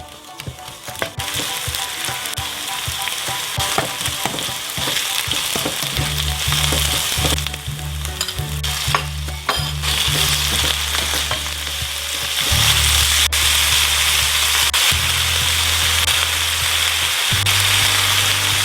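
Food sizzling and frying in a hot pan while being stirred, with light utensil clicks in the first seconds; the sizzle grows louder about twelve seconds in.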